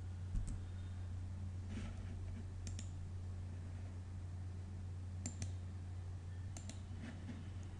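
Computer mouse clicking about four times, each click a quick double tick of press and release, over a steady low hum.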